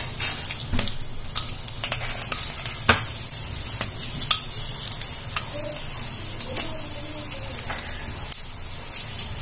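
Hot oil sizzling in a pan as broken dried red chillies fry in a mustard-seed and fenugreek tempering. Frequent sharp crackles and pops from the mustard seeds run through it, a few louder ones among them.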